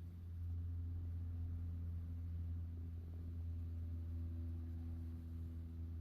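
A steady low hum with a few faint steady higher tones above it, even throughout.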